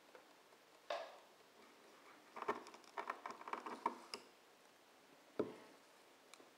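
Granulated sugar crunching and grating as a JCB Sitemaster phone is drawn up out of a glass packed full of it: a dense run of gritty crackles and clicks lasting about two seconds, after a soft swish. One short knock follows about a second later.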